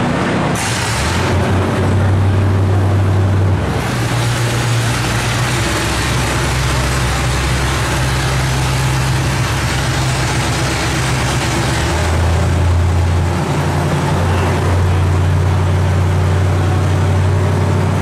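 A loud, steady low mechanical drone with an even hiss over it, its hum growing and easing a few times.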